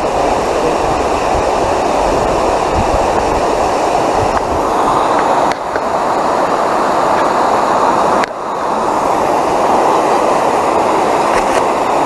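Steady rush of water pouring over a concrete spillway, dipping briefly twice.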